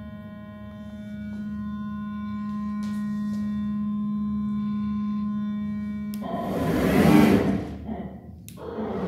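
Aristo Mate 1310 flatbed cutting plotter running: a steady pitched hum, then about six seconds in a louder rushing noise that swells and fades, followed by a click and another rush near the end.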